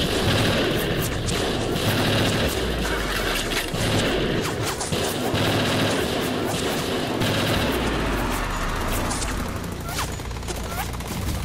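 Battle sound effects: dense, continuous gunfire, many guns firing at once, easing a little near the end.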